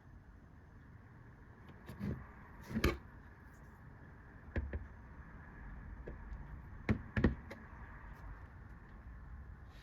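Computer parts being handled on a work surface: about five light knocks and clicks over a faint steady hiss, with a close pair near the end.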